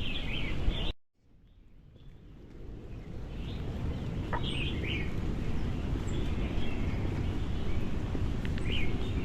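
Birds chirping in short calls over a steady bed of outdoor background noise. The sound cuts out abruptly about a second in and fades back up over the next couple of seconds, with chirps returning several more times.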